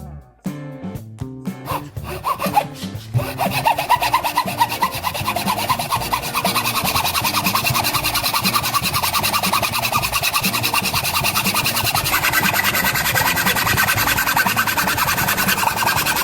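Fast, steady rasping scrape of a drill bit being sharpened, starting about three seconds in and growing brighter near the end, over background music.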